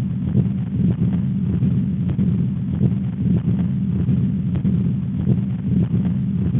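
Heart sounds recorded through a stethoscope, repeated beats over a constant low rumbling noise.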